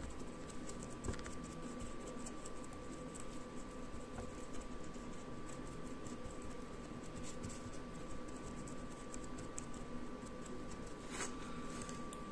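Small paintbrush scrubbing the plastic brush-holder end cap of a small DC motor: a faint, scratchy brushing with many tiny ticks. There are a couple of louder scratches near the end.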